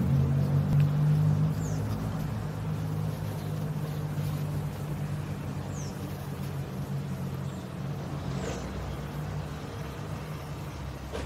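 Honey bee swarm buzzing: a steady low, droning hum that slowly gets quieter, with a few faint, short, high falling chirps now and then.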